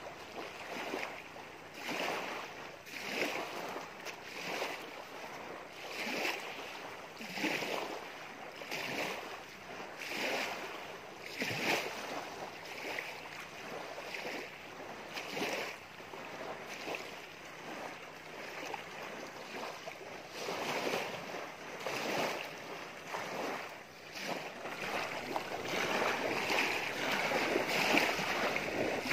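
Small waves lapping on a lakeshore, a wash swelling and falling about once a second, fuller and more continuous over the last few seconds.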